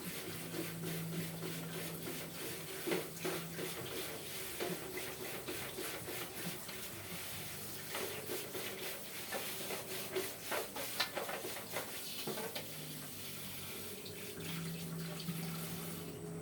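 Water running and splashing, with many small irregular pops and clicks; it cuts off suddenly near the end.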